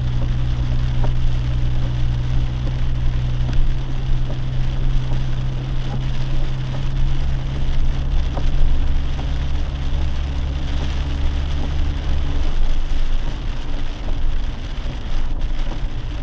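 Lifted Jeep driving in rain, heard from inside the cabin: a steady low engine and road drone under an even hiss of rain and tyre spray, with scattered light raindrop ticks. The low drone eases a little about twelve seconds in.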